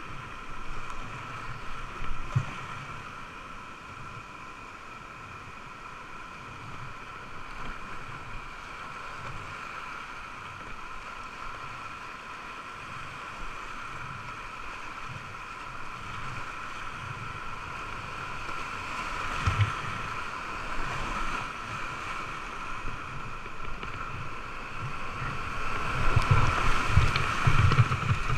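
Rushing whitewater heard from a kayak running a creek rapid, with uneven low thumps and splashes from paddle strokes. The water noise builds from about two-thirds of the way in and is loudest near the end as the kayak drops into a steep, foaming stretch.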